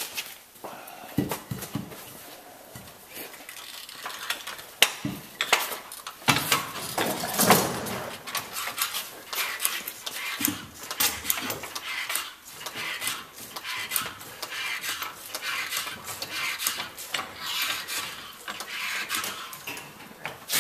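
Irregular clinks, knocks and clatter of metal hand tools and clamps being picked up, set down and moved about, with some rubbing and handling noise.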